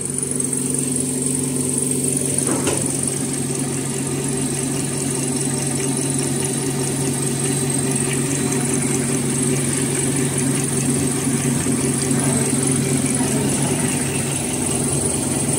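Automatic mask ear-loop cross-welding machine running: a steady mechanical hum with a thin high tone above it and faint rapid ticking from its moving parts.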